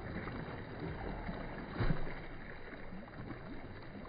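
Water splashing and sloshing as people swim, with a louder splash a little under two seconds in.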